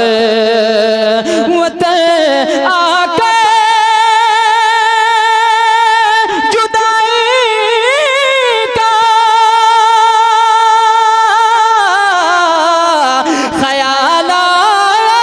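A young man's voice singing a naat into a microphone, without words: long held high notes, with wavering, sliding ornaments about halfway through and again near the end.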